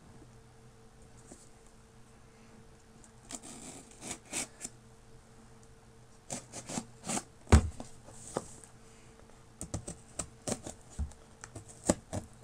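A shipping package being opened by hand: scratching, tearing and rustling with scattered sharp clicks. It is quiet for the first few seconds, and there is one louder knock about halfway through.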